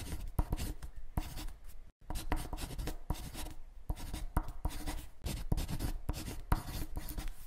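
Pen scratching on paper in quick scribbled strokes: a handwriting sound effect. It drops out briefly about two seconds in.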